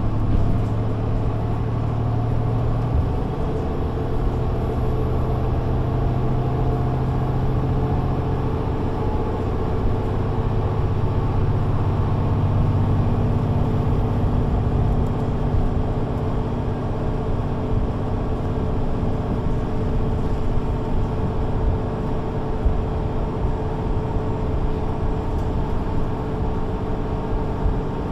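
Mercedes-Benz Citaro C2 G articulated bus driving, heard on board: its diesel engine and automatic gearbox, together with road noise. The engine note shifts a few times in the first fifteen seconds or so, then holds steady.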